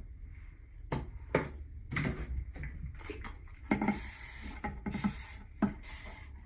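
Irregular knocks, taps and short scraping or rustling sounds of objects being handled, over a steady low hum, with a longer hiss about four seconds in.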